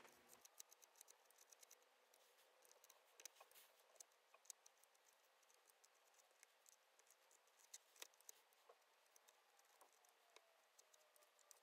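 Near silence, broken by a few faint, scattered small ticks and scrapes: a small metal spatula spreading lightweight spackle along the edge of a model retaining wall.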